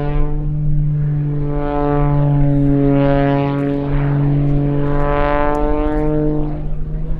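Propeller aircraft engine droning steadily in flight, with a phasing sweep that comes and goes several times as the plane moves.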